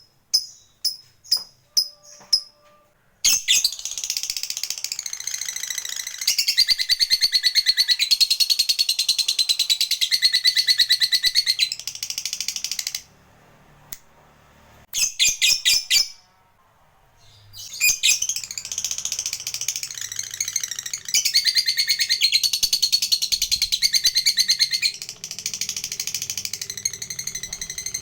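Lovebird making a few sharp single chirps, then breaking into a long, rapid chattering trill, the 'ngekek', that lasts about ten seconds. After a short pause and a few more chirps, a second long trill begins a little past the middle and runs on.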